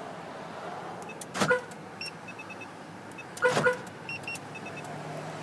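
Autopage RF-425 car alarm working the truck's locks twice: each time a short clunk with a brief chirp, followed by a few quick high electronic beeps.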